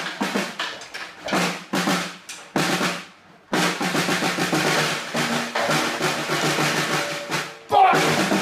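Solo snare drum played in short bursts of rapid strokes with brief gaps, then a continuous fast roll from about three and a half seconds in. A loud new burst of strokes comes near the end.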